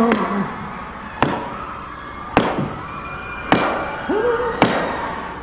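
Single sharp percussive hits through the stadium PA, evenly spaced about once a second, each ringing out in a long echo. A short rising vocal yelp comes about four seconds in.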